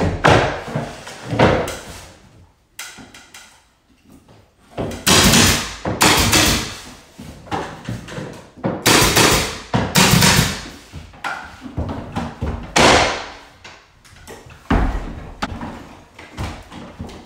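Pneumatic nail gun on an air hose firing several nails through crown molding into the wall, each shot a sharp bang that fades within about a second. Lighter knocks of the molding being pushed into place come in the first couple of seconds.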